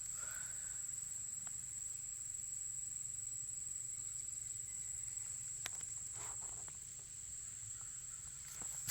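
Insects in a steady, high-pitched chorus of crickets or similar, with a few faint clicks over it.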